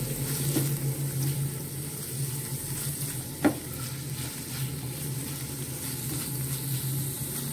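Chicken pieces sizzling in a frying pan while a silicone spatula stirs and presses them, cooking off the chicken's own water. A single sharp knock about three and a half seconds in.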